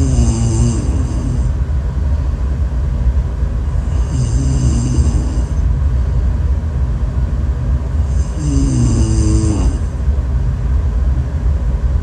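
Snoring: three snores about four seconds apart, with a fourth starting at the end. Each lasts about a second and a half, with a pitched tone that glides and a thin whistling edge, over a constant low rumble.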